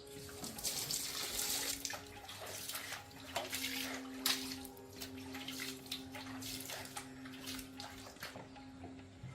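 Water running from a tap and splashing unevenly.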